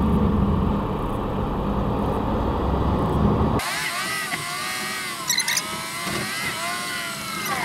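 Truck cab noise while driving: a steady low engine and road rumble. A little over halfway through it changes abruptly to a thinner whine of several pitches that slowly rises and falls.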